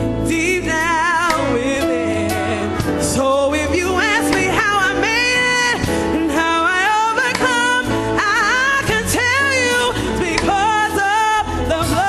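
Live gospel music: a lead singer with wide vibrato over a band with bass and drums, the choir joining in.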